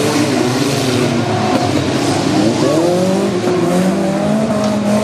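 Several small-engined fun car racers running hard around a dirt track, their engine notes overlapping and rising and falling as they accelerate, shift and corner.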